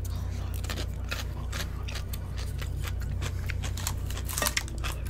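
Close-miked chewing of a mouthful of fried chicken, with many quick crunches and wet mouth clicks and a louder burst of crunching about four and a half seconds in.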